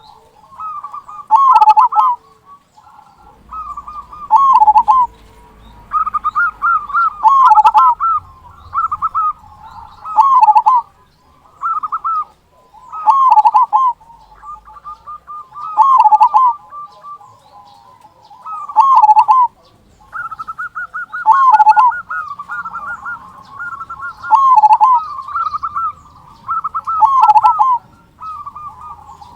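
Zebra dove (perkutut) singing its cooing song over and over, a phrase about every three seconds, with quick stuttering notes running into each phrase's big low "kung" note.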